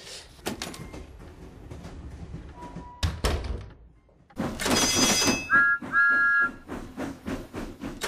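A door being opened, with light clicks and steps, then the door shutting with a thud about three seconds in. After that comes a lively music sting with chiming tones and two short whistle notes.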